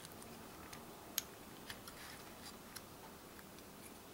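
Quiet room tone with a few faint, sharp little clicks, the loudest about a second in, from small tools touching a circuit board during hand desoldering.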